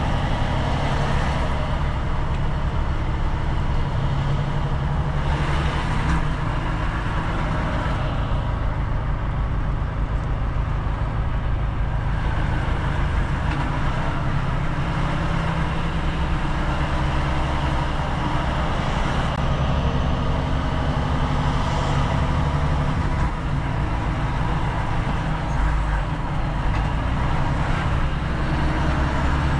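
Volvo FM4 truck's diesel engine running steadily, with a low, even hum and road noise.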